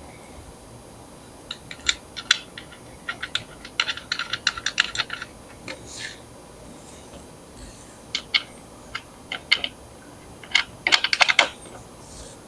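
Skateboard mounting hardware clicking and rattling as nuts are threaded onto the truck bolts by hand. The sharp metal clicks come in three bunches, the last one the densest.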